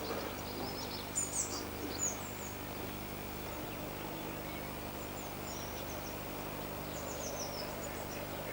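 Small songbirds giving short, high, quick chirps in two brief bouts, over a steady low background drone.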